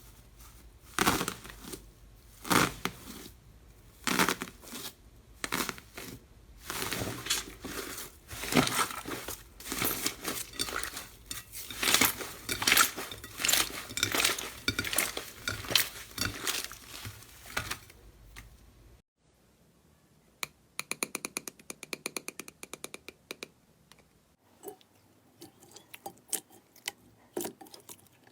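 Slime being squeezed and pressed by hand, giving repeated crinkling, crackling bursts; after a sudden cut, a quick run of small clicking pops, then scattered clicks.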